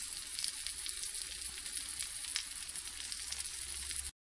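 Egg omelette with mushrooms, tomato and sweet pepper frying in a pan: a steady sizzle with scattered small crackles, cutting off suddenly near the end.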